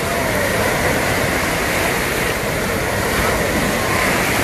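Wave-pool surf washing into the shallows, a steady rush of water.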